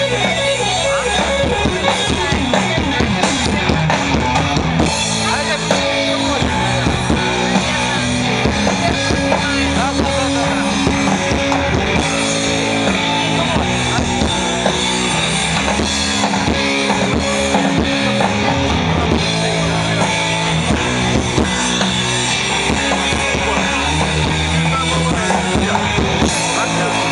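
Loud dance music with a drum kit and guitar, playing steadily with a regular beat.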